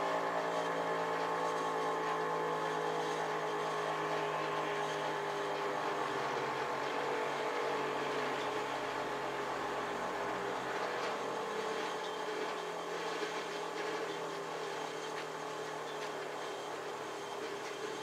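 Darley STH-10A three-phase outdoor warning siren winding down, its tone sinking slowly in pitch and fading gradually.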